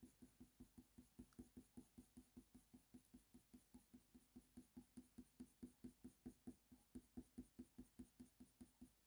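Faint, quick strokes of a Faber-Castell Polychromos colour pencil on hot-press watercolour paper, about four to five short scratches a second, as short fur strokes are laid down.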